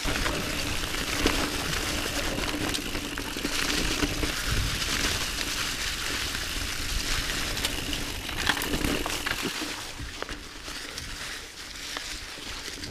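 YT Jeffsy 29 AL mountain bike riding downhill over a trail of dry leaf litter: a steady rush of tyre and trail noise with scattered rattling clicks from the bike, easing off a little near the end.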